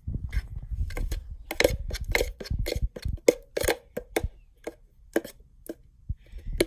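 A spoon stirring glue mixed with baking soda in a container, knocking and scraping against its sides in quick, irregular clicks.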